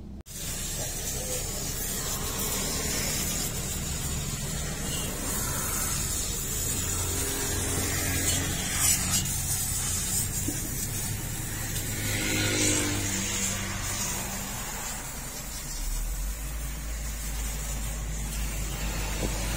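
Steady machine noise with a constant hiss at a car-wash bay, heard from inside the car; a deeper low hum comes in a few seconds before the end.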